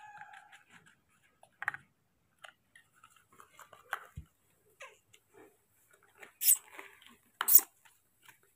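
Spoon scraping and tapping in a small plastic bowl of porridge: scattered short clicks and scrapes, with two louder scrapes near the end.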